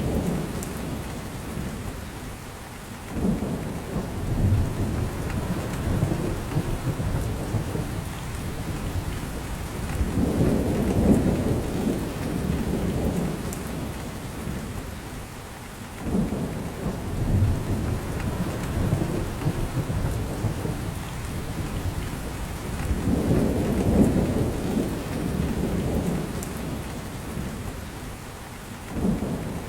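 Steady rain falling and dripping through spruce branches. Under it, a low rumble swells and fades, coming back about every thirteen seconds.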